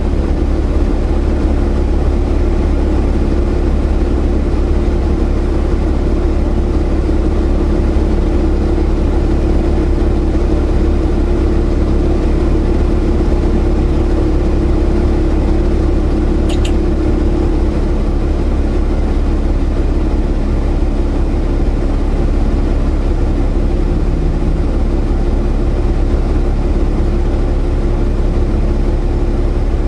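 Steady drone of a semi truck's diesel engine and road noise heard from inside the cab, with one brief high click a little past halfway.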